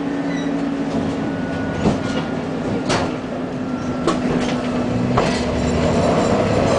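Tram running along the track, heard on board: the wheels clack over rail joints about once a second over a steady hum. Near the end a motor whine starts rising in pitch as the tram picks up speed.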